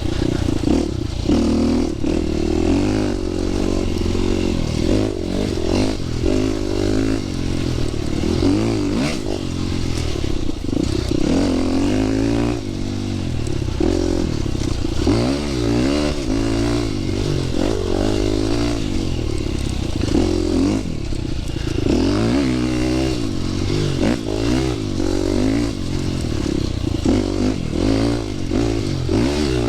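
Dirt bike engine running under riding load, its revs rising and falling every second or two as the throttle opens and closes along the trail.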